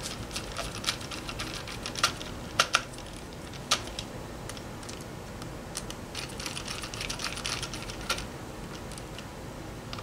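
Small precision screwdriver tightening the screws of a laptop's drive-retaining bracket: a string of light, irregular clicks and ticks, with a few sharper clicks about two to four seconds in.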